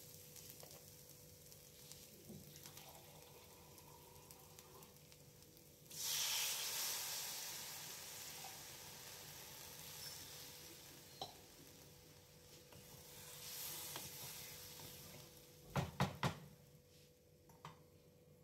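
Spiced onion-and-potato masala frying quietly in a non-stick kadai while a spatula stirs it. About six seconds in, water poured into the hot oil sets off a sudden loud sizzle that slowly fades to a simmer. A few sharp knocks come near the end.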